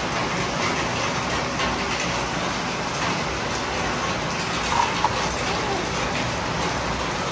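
Steady rain falling on wet surfaces, an even dense hiss. Two brief small sounds stand out about five seconds in.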